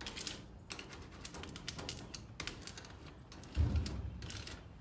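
Vinyl lettering being smoothed down onto a painted metal vending machine panel with a plastic card: a run of short, quick scraping rubs, several a second, with a dull thump about three and a half seconds in.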